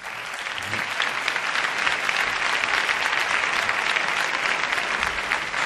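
Studio audience applauding: a dense, steady clapping of many hands that starts abruptly.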